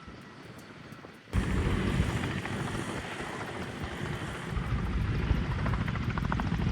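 Helicopter in flight close by, a loud dense rumble of rotor and turbine noise with rapid low pulsing. It starts abruptly about a second in and cuts off sharply at the end.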